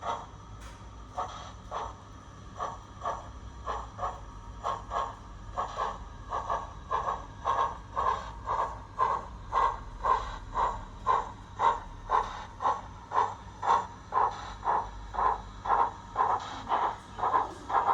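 Digitrains steam sound file on a Zimo sound decoder in an OO gauge Beyer-Garratt model, played through the loco's small speaker: the locomotive chuffing as it pulls away. The beats start about a second apart and quicken to two or three a second as it gathers speed.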